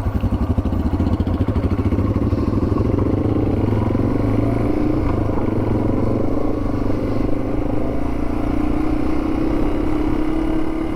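Yamaha TW200's single-cylinder four-stroke engine running steadily while riding along.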